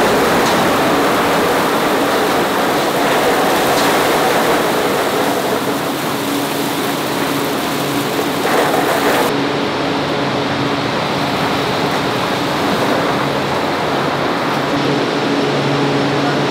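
A load of harvested olives pouring in a continuous rush from a tipping trailer through a steel grate into an olive mill's reception hopper, over a steady machine hum. About nine seconds in the pouring thins out and the low hum comes to the fore.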